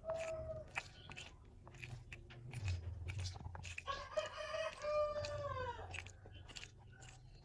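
A rooster crowing once, about four seconds in, a single call of roughly two seconds that falls in pitch at the end. Short crisp clicks and crunches run around it.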